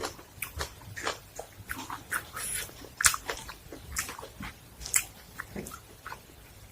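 Close-up eating sounds: irregular crunching, chewing and mouth clicks, several sharp crackles a second.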